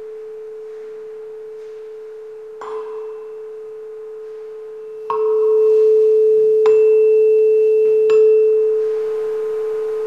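Tuning fork on a wooden resonance box ringing with one steady pure tone, struck again with a mallet four times. Each strike is a short knock that briefly adds higher ringing. The tone is much louder from the second strike, about halfway through.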